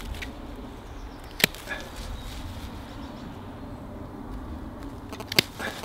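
Felco Model 7 secateurs snipping through woody dogwood stems close to the ground: sharp single clicks, one about a second and a half in and another near the end.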